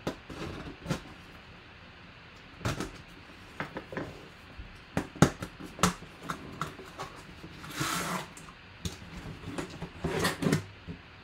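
Cardboard box being slit along its taped seam with a small knife and pulled open by hand: a string of separate clicks, knocks and scrapes, with one longer scraping rasp about eight seconds in.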